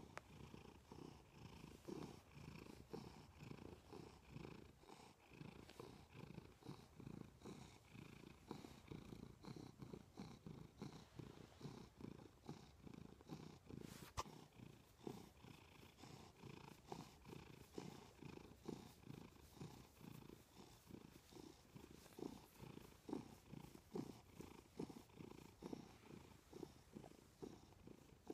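Domestic cat purring steadily, the purr swelling and fading with each breath about twice a second. A single sharp click sounds about halfway through.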